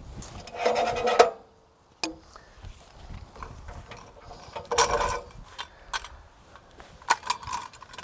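Steel winch post being lifted out of its socket on the sawmill bunk and handled: several brief scraping, clanking bursts of metal on metal, the loudest about a second in and near five seconds, with a few sharp clicks between.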